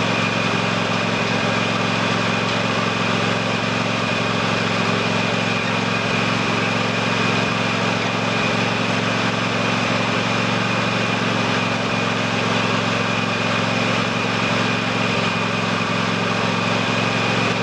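Husqvarna TS348D lawn tractor's engine running at a steady, even speed, with a steady high-pitched whine over it.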